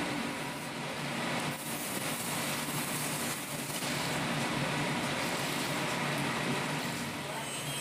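A steady mechanical drone with an even hiss over it, unbroken and without any clear strikes or rhythm.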